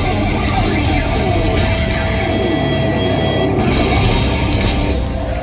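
A live hard rock band playing loudly, with electric guitar over bass and drums. The music eases off a little near the end.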